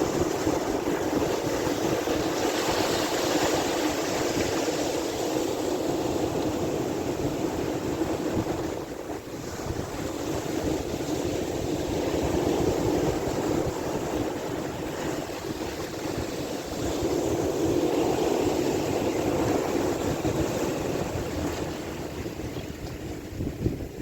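Sea waves washing in slow swells that rise and fall every several seconds, with a low rumble of wind on the microphone underneath.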